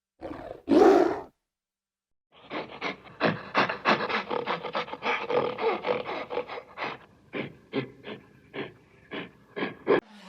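A large animal calling: two short roars, then a long run of rapid grunting pulses, about four or five a second, that slow and space out toward the end.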